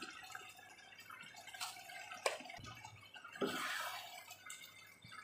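Dark soy-based beef sauce simmering and bubbling in a nonstick pan. There are a couple of light knocks, and a wooden spatula stirs through the sauce about three and a half seconds in.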